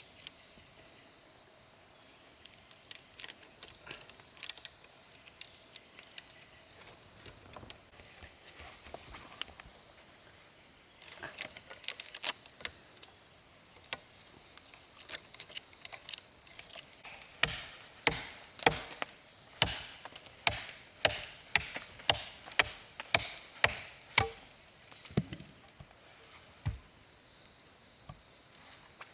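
Tool strikes on wood: scattered light knocks and clicks at first, then a steady run of about a dozen strong chopping blows, roughly two a second, that stops a few seconds before the end.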